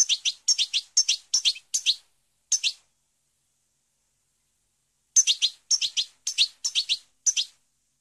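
European goldfinch singing: two bouts of quick, high, clipped chirping notes, about six notes each, separated by a pause of about two seconds.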